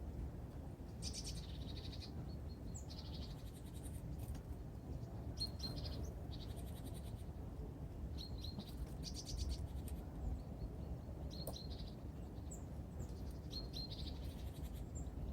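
Small birds at a winter feeder calling: short high chirps and quick chattering rattles, repeated every second or two, over a steady low background rumble.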